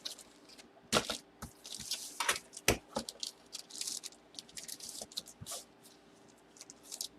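Box packaging being opened and handled by hand: short rustling and tearing sounds with a few sharp clicks and knocks in between.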